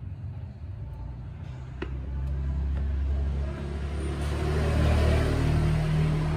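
A motor vehicle engine running, a low steady rumble that swells from about two seconds in and is loudest near the end, with a single sharp click shortly before it swells.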